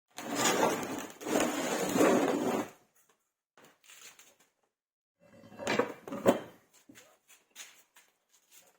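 Objects being handled on a workbench: a stretch of rustling and clattering for the first few seconds, then scattered knocks and clicks with short pauses between them.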